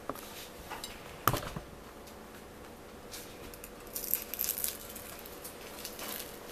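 Metal fork clinking and scraping on a china plate while cutting into a baked tortilla wrap: one sharp clink about a second in, then a cluster of lighter clicks and scrapes a few seconds later.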